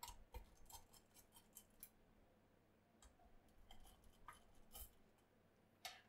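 Faint, scattered plastic clicks and ticks from a Lenovo ThinkPad P52's bottom cover as its clips are worked loose and the panel is lifted off by hand. The clicks bunch together in the first two seconds, and a few more come around three to five seconds in.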